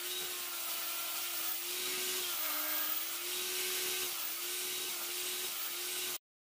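Table saw running and cutting a small wooden block: a steady hum under a strong high hiss, the hum dipping in pitch twice as the blade takes the cut. It cuts off suddenly near the end.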